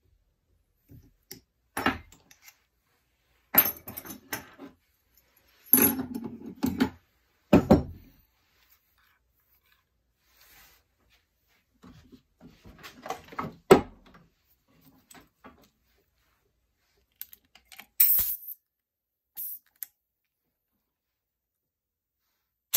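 Metal hand tools clinking and rattling in irregular bursts with pauses between, as wrenches and a cut-off wheel on its mandrel are handled and fitted into a mini air die grinder. One sharp clank stands out about two-thirds of the way through.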